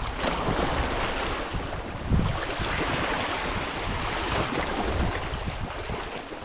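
Sea surf washing steadily, with wind buffeting the microphone in low thumps.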